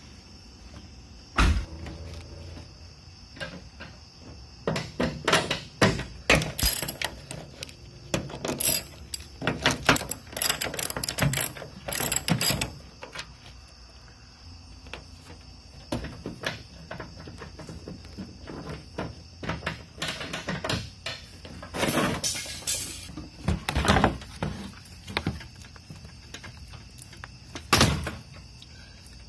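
Irregular clicks, clanks and knocks of tools and car parts being handled as the engine bay of a crashed Mazda CX-9 is stripped, such as the air intake duct being pulled off. They come in busy clusters with quieter gaps between.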